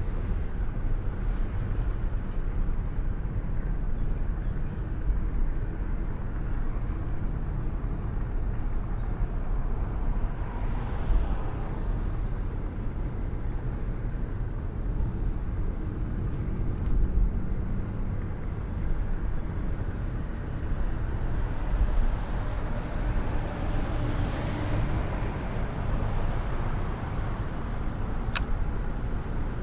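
Steady low road rumble and tyre noise of a moving car on snowy streets, heard from inside the car, swelling twice as other cars pass.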